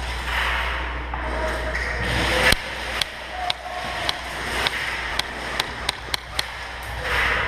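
Airsoft gunfire and BB hits: one loud crack about two and a half seconds in, then a string of sharp snaps coming about two a second, over a steady background hiss.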